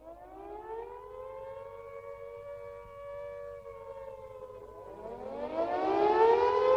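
Air-raid siren wailing: it winds up over the first second, holds its pitch, sags, then winds up again from about five seconds in, growing louder.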